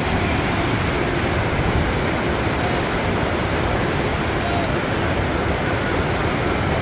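Whitewater rapids rushing over rocks: a steady, even roar of churning water.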